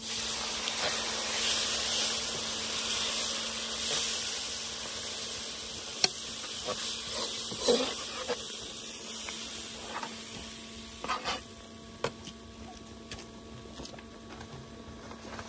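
Curry ingredients sizzling in hot oil in a cooking pot, loudest at first and dying down after about nine seconds, with a few sharp knocks of stirring.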